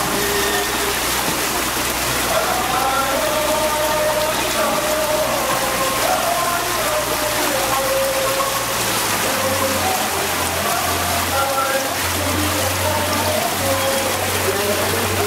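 Steady rushing noise of a small sightseeing boat under way on a canal: its motor and the water along the hull. A faint melody drifts over it, and a low hum grows stronger about two-thirds of the way through.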